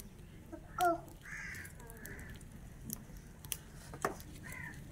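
A crow cawing several times in short harsh calls, the loudest about a second in, with a few sharp clicks in between.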